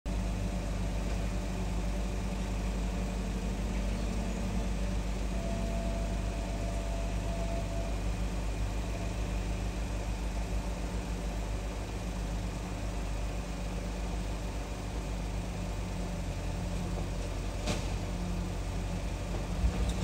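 Car engine idling steadily, a low even hum heard from outside the car, with a single short click about three-quarters of the way through.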